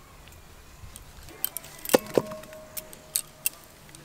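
Scattered knife clicks and light knocks while raw chicken drumsticks are scored, with two sharp knocks about two seconds in as pieces land in a steel bowl, which rings for about a second.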